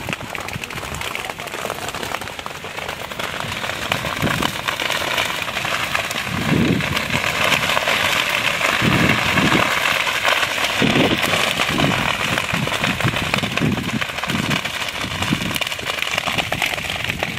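Standing sugarcane crop burning, the stalks crackling and popping in a dense, continuous stream that grows louder about six seconds in.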